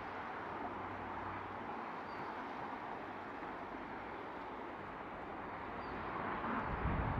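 Steady rushing of strong gusty wind, with low gusts buffeting the microphone near the end.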